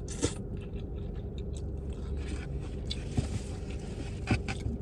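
Eating drunken noodles: a utensil scrapes and clicks sharply against the food container a few times, with soft chewing sounds in between.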